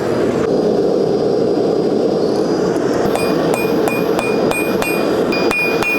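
Hand hammer striking hot steel on an anvil, about three ringing blows a second starting about halfway through. Under the blows is the steady rushing noise of a gas forge.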